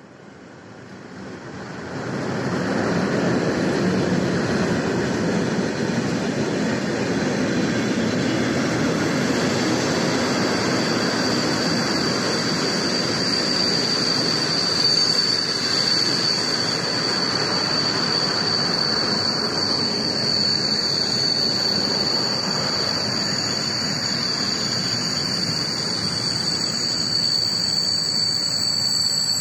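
ET22 electric freight locomotive arriving and running past, followed by its train of flat wagons: wheels on rails build to a loud steady rumble over the first two or three seconds and hold. A thin, high-pitched squeal sets in about nine seconds in and stays over the rumble.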